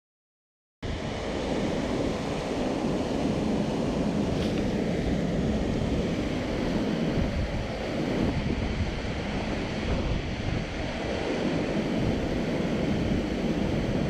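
Steady rush of a mountain stream pouring over a small weir into a pool, starting about a second in, with wind buffeting the microphone.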